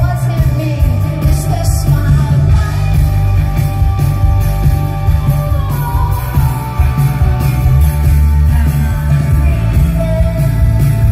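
Live rock band playing through a PA: a woman's lead vocal over electric guitar, drums and heavy bass.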